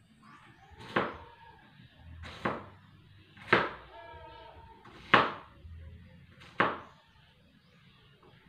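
Five sharp blows at a steady pace, about one every second and a half, each dying away quickly. A faint voice is heard between them.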